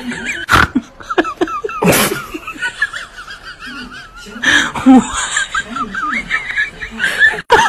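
People laughing amid voices, broken by a few short, loud bursts of noise.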